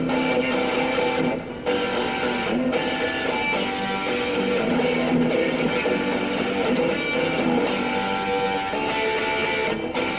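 Electric guitar with distortion strumming chords and letting them ring, with a couple of short breaks between chords in the first few seconds.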